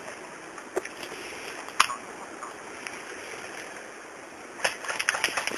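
Airsoft guns firing: a few single sharp cracks about a second apart, the loudest near two seconds in, then a quick run of shots near the end, over a steady background hiss.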